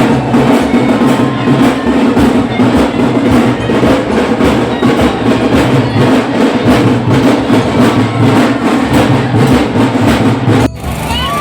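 Loud music driven by heavy, fast drumming and rhythmic percussion. It cuts off abruptly about a second before the end, giving way to quieter sound with a steady high tone.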